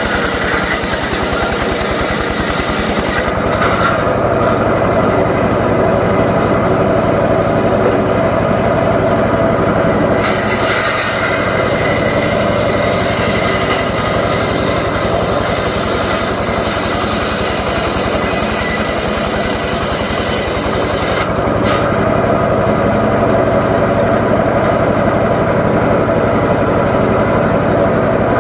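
Engine-powered saw running steadily and cutting jowar wood, with the pitch and load shifting a few times as the cut goes on.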